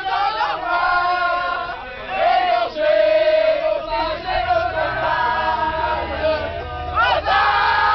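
Drunken group of people singing and chanting loudly together on a bus, with long held notes. A low rumble joins about halfway through.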